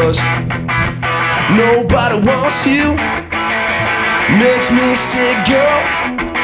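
Live rock band playing a song on electric and acoustic guitars with bass guitar, the guitars strummed in a steady rhythm.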